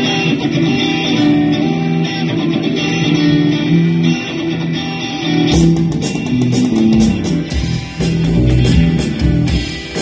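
Live rock band playing an instrumental passage: electric and bass guitars over keyboard and drums. About halfway through, the cymbals and low end come in fuller.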